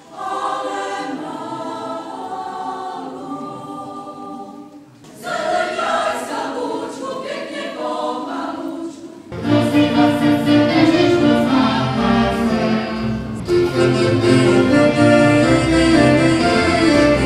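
Women's choir singing without accompaniment, with a short break about five seconds in. After about nine seconds this cuts to louder folk dance music with a strong bass line and a steady beat.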